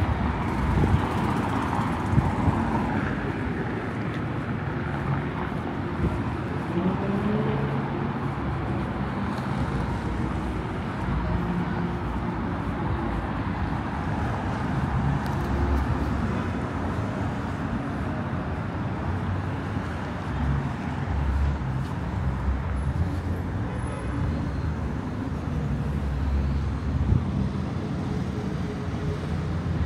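Street traffic: car engines running and passing, a steady mix of engine hum and road noise.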